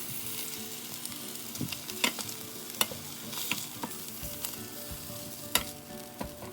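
Chicken pieces frying in a pan with a steady sizzle. A metal utensil clicks and scrapes against the pan several times, the loudest click about five and a half seconds in, as the browned pieces are lifted out.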